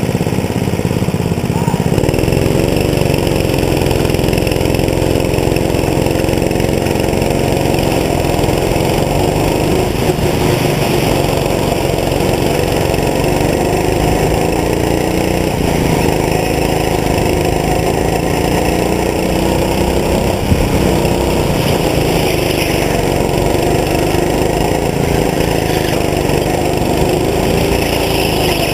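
Go-kart's small engine running close up, its pitch rising and falling as the driver opens and lifts the throttle through the corners. A single brief knock comes about two-thirds of the way through.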